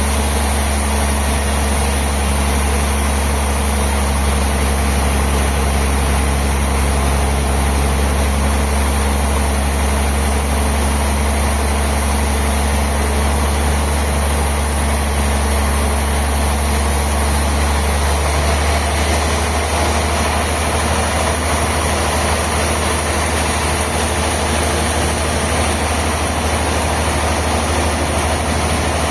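Heavy sawmill machinery running steadily with a deep, constant hum. Some of its lower tones drop away about eighteen seconds in.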